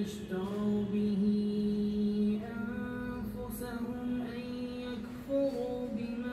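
Quran recitation in Arabic: one voice chanting long, held melodic lines with slow turns in pitch, the chant rising and growing louder about five seconds in.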